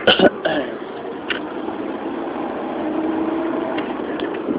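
Car engine and road noise heard from inside the moving car, steady throughout, with a few brief knocks or clicks, the loudest right at the start.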